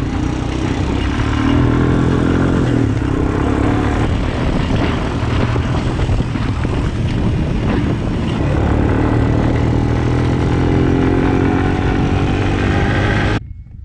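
Quad bike engine running steadily under way at speed, its pitch drifting a little as the throttle changes, with rushing wind noise over it. It cuts off abruptly just before the end.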